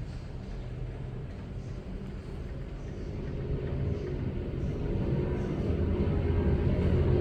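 Split air conditioner running with a steady low hum, growing louder over the last few seconds.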